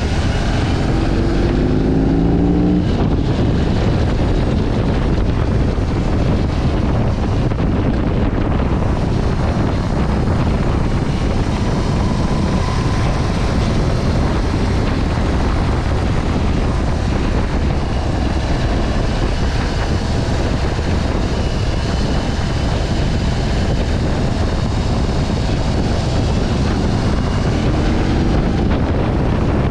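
BMW R 18's 1,800 cc boxer twin running under way, heavily mixed with wind rushing over the camera's built-in microphone. The engine note rises briefly about a second in, and again near the end, as the bike accelerates.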